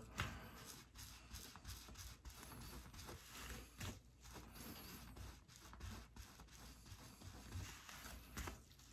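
Faint, irregular scraping and rubbing: a cloth wiping sticky adhesive residue off the thin skin base of a hair system, with gloved hands handling the piece.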